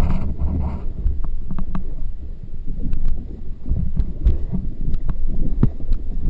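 Kayak paddle strokes in river water heard on a close-mounted camera: a heavy, continuous low rumble of water and wind on the microphone, with many scattered sharp clicks and small splashes as the blade dips and drips hit the housing.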